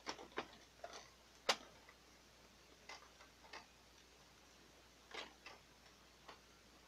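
Light, scattered clicks and knocks of plastic parts from a Canon PIXMA MG3510 inkjet printer being worked and pushed together by hand as its internal assembly is fitted into the chassis, with one sharper knock about a second and a half in.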